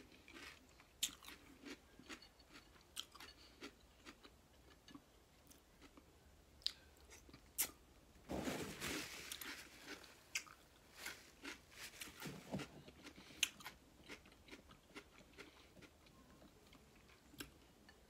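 Close-miked chewing of fresh cucumber, with many short crisp crunches. About eight seconds in, a couple of seconds of paper rustling as a napkin is wiped across the mouth.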